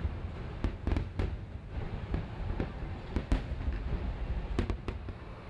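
Fireworks display going off: a string of sharp, irregularly spaced bangs over a continuous low rumble, the loudest about three seconds in.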